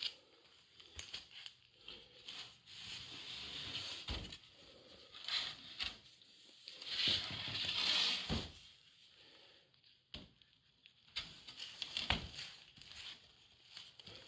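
Paper and a plastic bag rustling and crinkling in irregular bursts, with three sharp knocks spread through.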